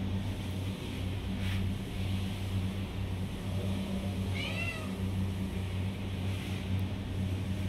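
Kitten mewing, a short high-pitched call about four and a half seconds in, over a steady low hum.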